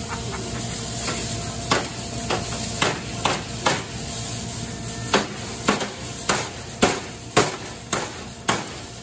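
Hammer blows on the crumpled sheet-metal front fender of a 1978 Ford LTD demolition derby car, bashing the wheel arch back for tyre clearance. A few scattered strikes come first, then a steady run of about two blows a second from about halfway through.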